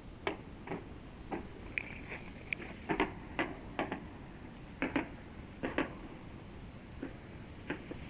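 Exploding ammunition dump heard from a couple of hundred meters away on an old field tape: irregular sharp cracks and pops, roughly two a second, over a steady tape hiss and hum.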